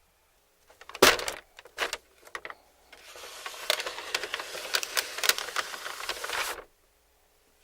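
Close-miked sharp clicks, then dense crackling for about three and a half seconds that stops suddenly: a mukbang eater handling and eating crispy KFC fried chicken.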